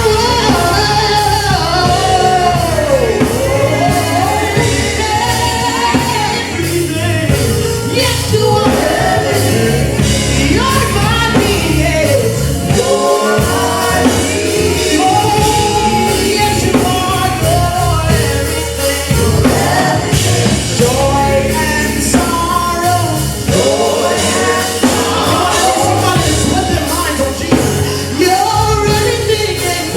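Live gospel music: a solo singer with a band, bass and drums keeping a steady beat, in a large hall.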